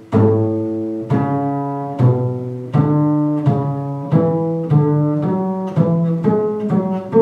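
Upright bass playing a run of about a dozen single plucked notes in a scale-like pattern, each note starting sharply and dying away, the notes coming a little faster towards the end. It is a crab-fingering exercise played from A up into thumb position.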